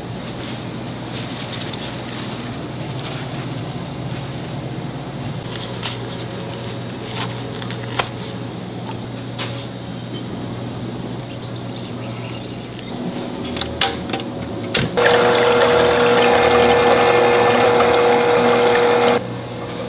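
Stand mixer whisking liquid in a stainless steel bowl, its motor running with a steady whine. It starts about three-quarters of the way through and cuts off abruptly shortly before the end. Before that there is a steady low hum, light handling clicks and liquid being poured into the bowl.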